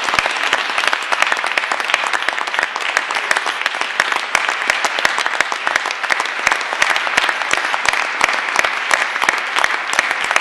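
Sustained applause from an audience in a large hall: many hands clapping in a dense, steady patter.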